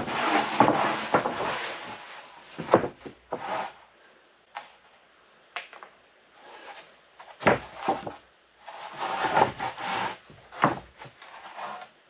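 Rough-sawn wooden boards being handled and laid onto a stack: scraping slides of board over board and several wooden knocks, busiest near the start and again in the second half.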